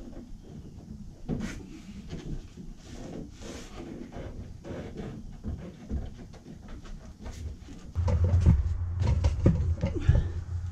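Soft knocks, scrapes and rubbing as a front bumper is worked by hand onto its rubber mounts on a 1979 Fiat Spider. About eight seconds in, a loud steady low hum starts, with clicks and clatter over it.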